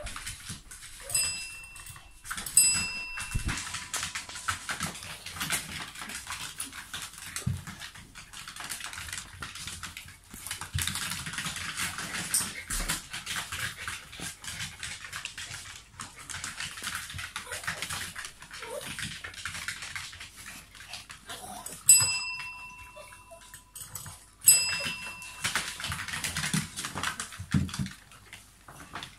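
A desk bell (service bell) is struck by a dog four times: two clear dings about a second and a half apart near the start, and two more about two and a half seconds apart much later. Each ding rings with several overtones and fades quickly. The bell is the dog's signal that food is coming. Between the rings there are dog noises and shuffling.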